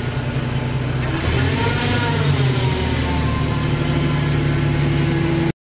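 Jet JWL-1236 variable-speed wood lathe running, a steady motor hum whose pitch rises and falls briefly about two seconds in, then cuts off suddenly near the end.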